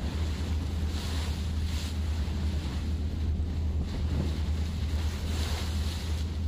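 Wind on the microphone and rushing sea water over a steady low rumble, the hiss surging up and down every second or so.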